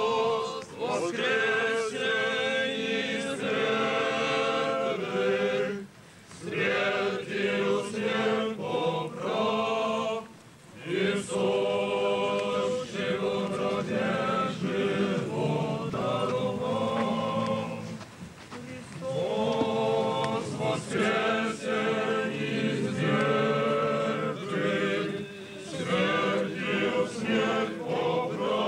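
A crowd of young people singing an Orthodox church chant together, unaccompanied, in long phrases with short breaks between them.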